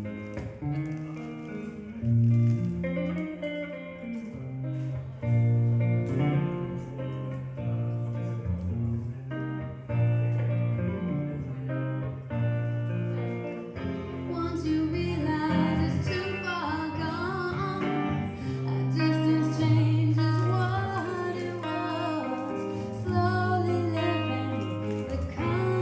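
Archtop jazz guitar playing a slow accompaniment with deep bass notes, and a woman's voice singing over it from about halfway through.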